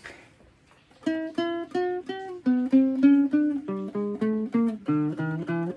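Guitar picked note by note, starting about a second in, at about three or four notes a second in a run that steps down in pitch.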